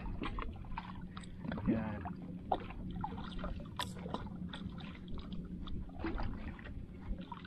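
A small fishing boat on the water: scattered short clicks and knocks over a steady low hum.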